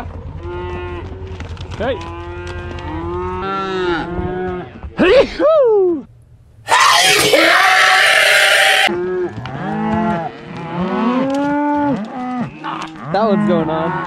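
A herd of cows and calves mooing over and over, many overlapping calls. About seven seconds in a man's loud, distorted yell cuts in for about two seconds, then the mooing goes on.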